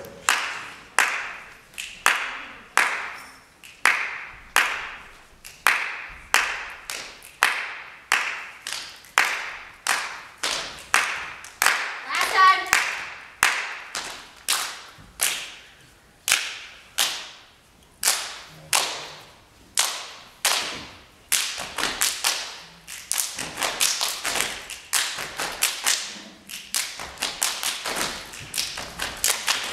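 A group clapping a steady rhythm in unison, with thumps mixed in, each clap ringing on in the hall. After about twenty seconds the beat doubles into quicker, denser claps.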